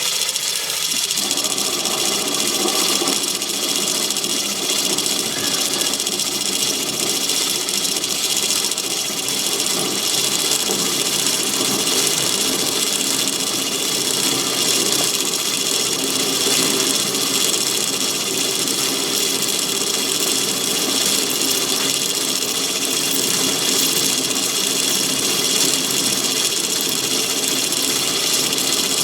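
Myford ML7 lathe running steadily while a parting tool held in a rear tool post cuts into a bar of home-cast aluminium lubricated with WD-40, a constant machine whine with no break.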